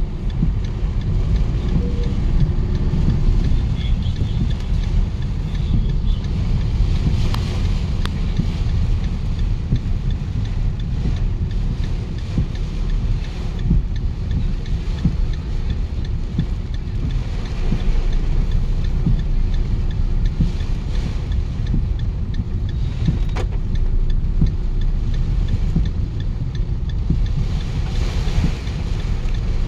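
Steady low rumble and hiss heard inside a car cabin as the car drives through heavy rain on waterlogged streets, with one brief sharp click about two thirds of the way through.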